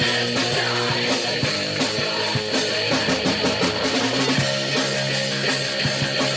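A rock band playing live: guitar over a drum kit, loud and continuous.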